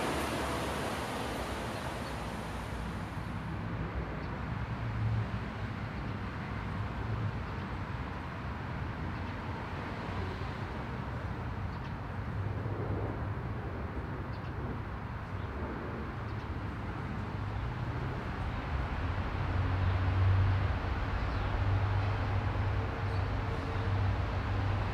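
Steady hiss of rain that cuts off suddenly three to four seconds in, leaving a low, steady rumble of distant traffic that grows louder in the last few seconds.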